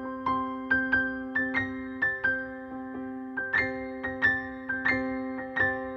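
Background music: a gentle piano or electric-piano melody of single struck notes over held chords.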